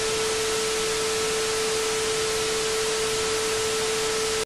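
TV static sound effect: a loud, even hiss with a steady tone running through it.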